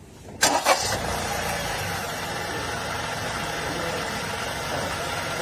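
Honda N-BOX Custom's three-cylinder engine starting with a short burst about half a second in, then running steadily.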